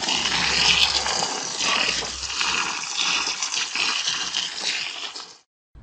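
Water pouring and splashing onto the soil of freshly planted vegetable pots, a steady stream soaking the earth around the roots. It stops abruptly near the end.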